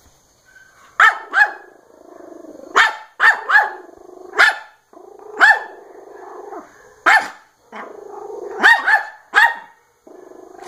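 Small dog barking in sharp bursts, often two in quick succession, with a low growl running between the barks: angry barking at a cordless drill.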